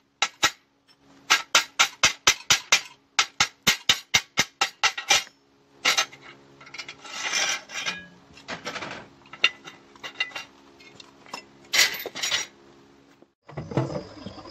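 Hammer striking a perforated steel smoker baffle plate on a steel welding table, in quick runs of about five or six blows a second with the plate ringing under each blow. About five seconds in the hammering stops, and the steel plates scrape and clank as one perforated plate is lifted off the other.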